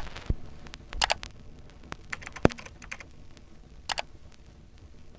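Handling noises: a handful of separate sharp clicks and taps with short rustling bursts, the loudest at the very start and about a second and a half before the middle, then a last one about four seconds in.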